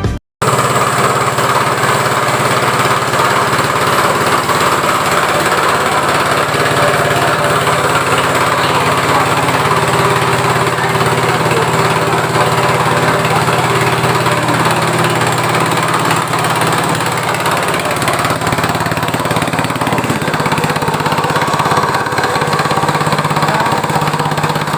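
Motor-driven coffee grinding machine running steadily, with a constant low hum under a loud, dense grinding noise.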